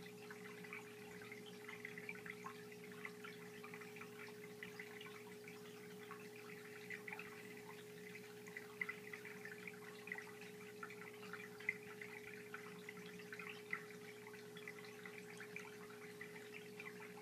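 Aquarium filter running: a faint steady hum under a constant light trickle and patter of water.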